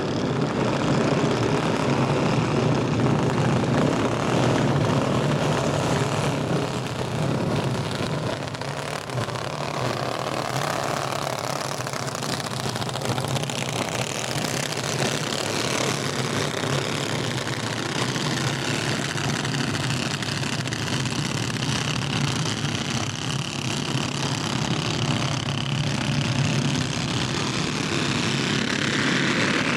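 A pack of racing go-kart engines buzzing together as the field laps the track, the drone swelling and fading as the karts come round and pass.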